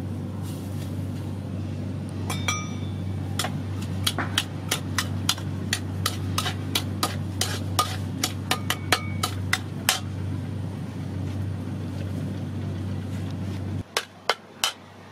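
Metal spatula clinking and tapping against a metal wok and a small bowl: a run of sharp clicks, some ringing briefly, over a steady low hum. After a cut near the end, a few louder knocks of the spatula in the pan.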